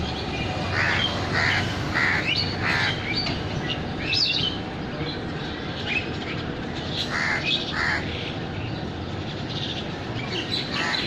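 Birds calling: short harsh calls, mostly in pairs, come several times, with a few quick rising chirps between them, over a steady low background rumble.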